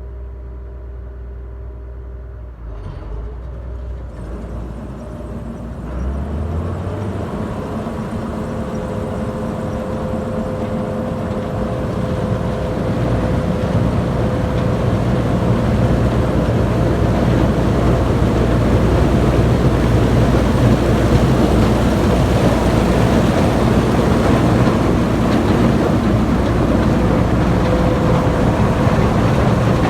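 Heavy farm machinery engine running. It revs up about six seconds in, and a rushing mechanical noise grows steadily louder over it.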